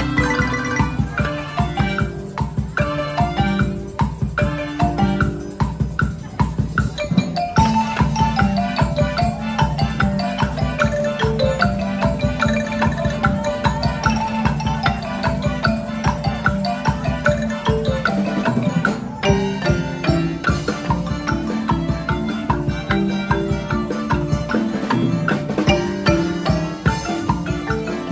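Melodic percussion band playing a piece on marimbas and other mallet instruments: quick runs of struck wooden-bar notes over a steady percussive beat.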